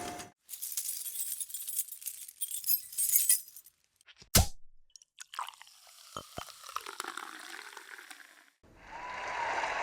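Sound effects: crackling and crunching for about three seconds, then a sharp crash about four seconds in, followed by glass clinking and tinkling as it dies away. Near the end, applause starts.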